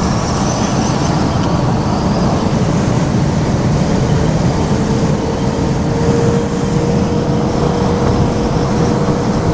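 Steady road and wind noise of a car driving at highway speed, heard from inside. About four seconds in, a steady hum joins it and holds.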